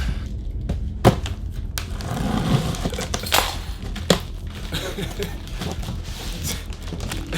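A boxed PC case being handled and unpacked: scattered knocks and clatters of cardboard and packing against the case, over a steady low hum.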